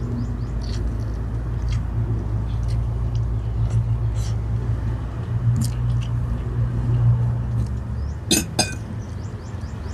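Eating: chewing and small clicks of food and tableware over a steady low hum, with two sharp clinks of tableware a little after eight seconds in.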